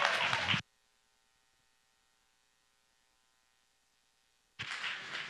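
Audience applause cuts off abruptly about half a second in, leaving near silence with only a faint steady electrical hum. The applause comes back shortly before the end.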